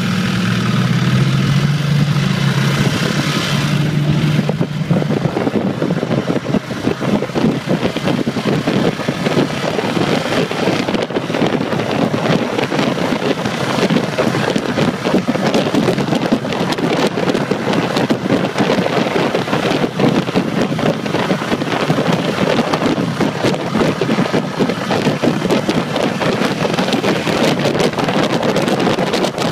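A Ducati Multistrada's L-twin engine running low and steady for the first few seconds as the bike pulls away. Then heavy wind buffeting on the microphone takes over and covers the engine as the motorcycle rides at speed.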